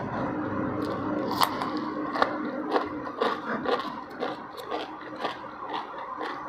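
Close-up eating sounds: chewing with sharp, irregular crunchy clicks, and fingers scraping and gathering rice on a plate.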